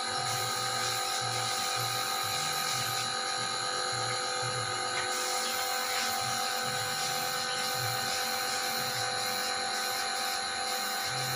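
Compressed-air spray-finishing rig running: a steady mechanical whine over a constant hiss, with a low irregular pulsing underneath.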